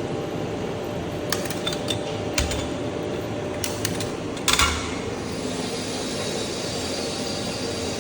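Steady machine hum and hiss with a few small metallic clicks, and a short, louder clatter about four and a half seconds in.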